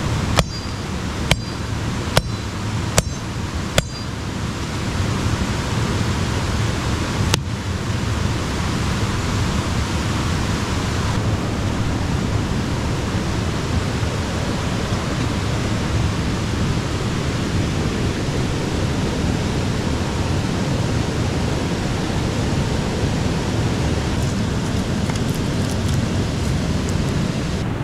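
River water rushing over rocks: a steady, loud rush of water. A few sharp metallic clinks with a brief ring come in the first four seconds, and one more about seven seconds in.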